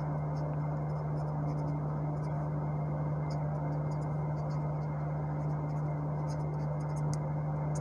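Marker pen writing on paper in short, faint scratchy strokes over a steady low hum.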